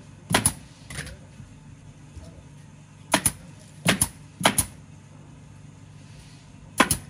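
Pneumatic upholstery staple gun firing staples through upholstery fabric: sharp snaps at uneven intervals, about six shots, most heard as quick double clicks, with a pause of about two seconds in the middle.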